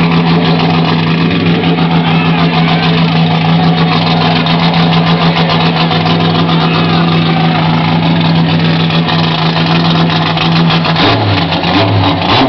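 Car engine, apparently a Chevrolet, idling loudly and steadily, its note changing and dipping about eleven seconds in.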